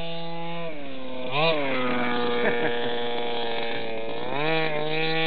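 Two-stroke petrol engine of an HPI Baja 5B SS large-scale radio-control buggy, revving up and down as it is driven: the pitch climbs sharply about a second and a half in, holds high, drops back a little before the end and then rises again.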